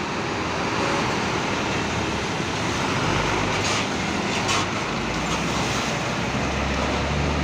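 Diesel engine of an economy-class intercity coach pulling away slowly, close by, with a steady drone and tyre noise on wet pavement; the engine note grows stronger near the end.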